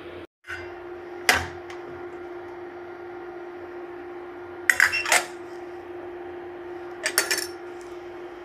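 Stainless-steel utensils clinking and clattering against a steel plate in three short bursts, about a second in, around the middle and near the end, over a steady hum.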